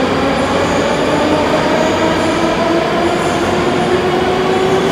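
Moscow Metro train accelerating out of the station: loud rumbling wheel and track noise, with the electric traction motors whining in several tones that slowly rise in pitch as it gathers speed.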